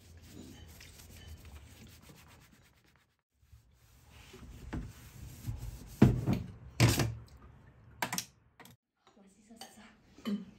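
Rubbing and scraping handling noises, then several sharp clacks or knocks of hard objects in the second half, the loudest a little past the middle.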